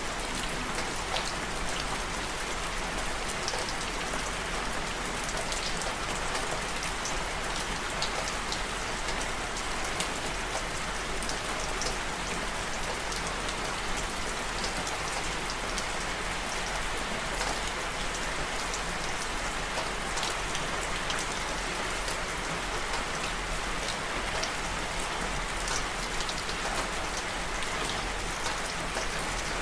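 Steady rain falling, a dense even hiss with many small droplet ticks.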